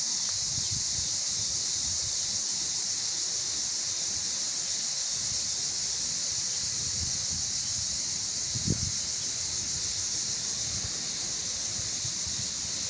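A steady high-pitched hiss fills the background. Under it, a tabby street cat crunches dry kibble in small irregular crackles, with a louder low bump about nine seconds in.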